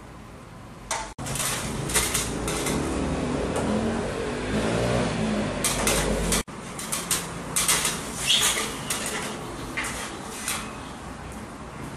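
Clicks and clatter of hands working a fluorescent tube light fitting as its starter is twisted out, a run of sharp knocks and rattles. The sound breaks off abruptly twice.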